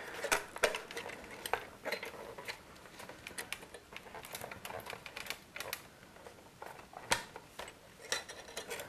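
Light clicks, taps and scrapes of the iMac G4's white plastic base housing being handled and fitted over its metal chassis, with louder knocks about half a second in and again about seven seconds in.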